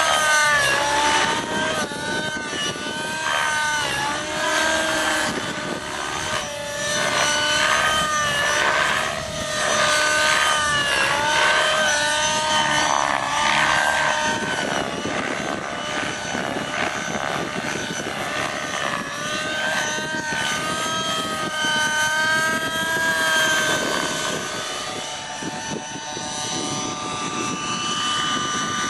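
Align T-Rex 600 Nitro radio-controlled helicopter's glow engine and rotor whine in flight. The pitch swings up and down again and again through 3D aerobatic manoeuvres, then holds steadier through the second half.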